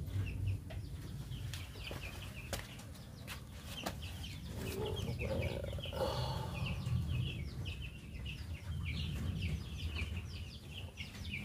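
Chickens clucking, with many short high calls repeating all through, over a low rumble.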